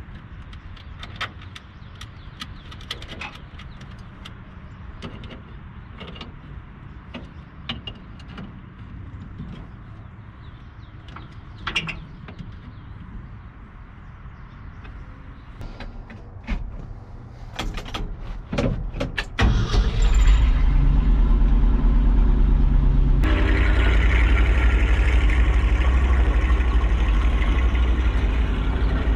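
Scattered clicks and knocks, then, about two-thirds of the way in, a carbureted Ford F600 truck's engine starts and keeps running steadily, getting louder a few seconds after it catches.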